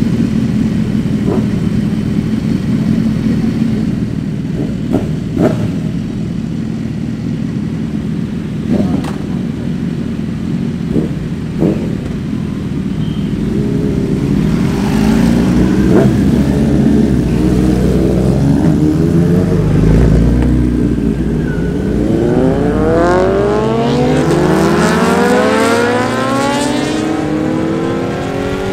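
A superbike's engine idling with a few sharp pops, then revving harder as it pulls away, its pitch climbing again and again as it accelerates.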